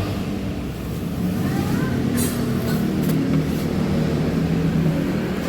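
A motor vehicle engine running steadily, with a sharp click about two seconds in and another about a second later.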